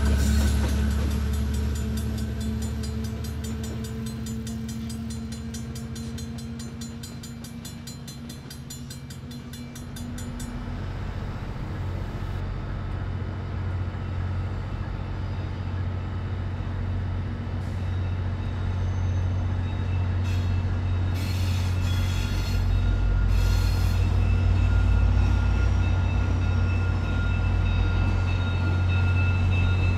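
Diesel passenger locomotive running as its train pulls away and fades. About ten seconds in, after a cut, comes the steady low rumble of diesel passenger locomotives running at low speed in a rail yard, slowly growing louder.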